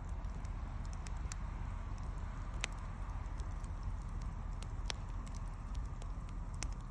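Wood burning in a bonfire: scattered sharp crackles and pops, a few standing out every couple of seconds, over a steady low rumble.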